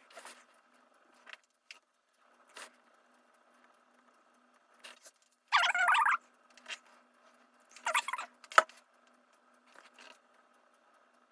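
Handling noises from work on an opened laptop, likely wiping parts during cleaning: scattered short scratches and rustles. The loudest is a scrubbing rustle about five and a half seconds in that lasts under a second, then another near eight seconds, with a sharp click just after. A faint steady hum lies underneath.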